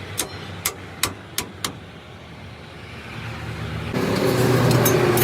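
A few sharp metallic taps in the first two seconds, then a truck's engine comes in about four seconds in and runs steadily, noticeably louder.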